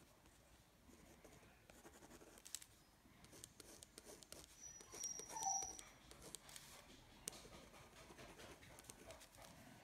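Faint scratching of a ballpoint pen on sketchbook paper in short, quick hatching strokes. A brief whine sounds about halfway through.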